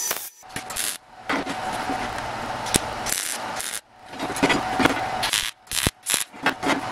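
MIG welder arc crackling while tack-welding steel square tube: one long run of about two and a half seconds, then shorter bursts with brief stops between as the arc is struck and broken.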